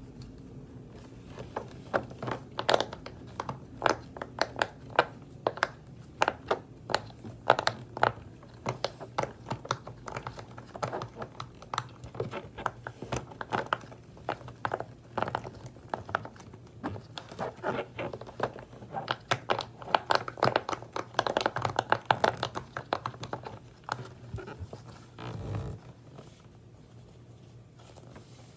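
Fidget toys being handled and squeezed by hand: irregular crinkling, scratching and clicking, busiest about three quarters of the way through.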